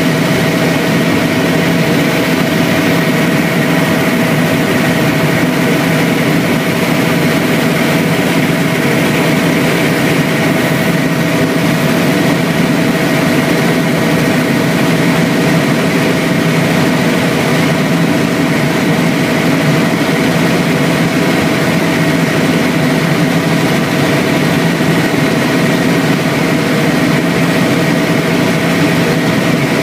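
Helicopter in flight, heard from inside the cabin: a loud, steady engine and rotor drone with several constant whining tones over it.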